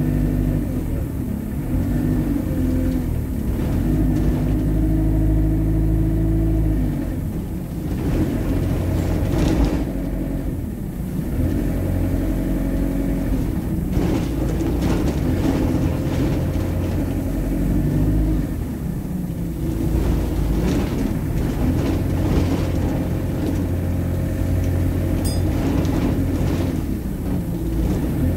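Alexander Dennis Enviro200 Dart single-decker bus running with a steady engine note for several seconds, then pulling away, its engine pitch rising and changing as it works through the gears. Sharp knocks and rattles from the bodywork come through along the way. It settles to a steady note again later and starts to rise once more near the end.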